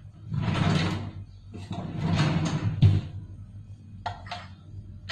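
Kitchen handling noises: two rough swishes, each about a second long, the second ending in a sharp knock, as things are moved about at the counter.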